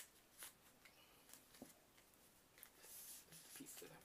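Faint handling sounds as vinyl phone-skin pieces and their backing sheet are picked up and sorted: small scattered clicks and soft rustles, with a longer rustle about three seconds in.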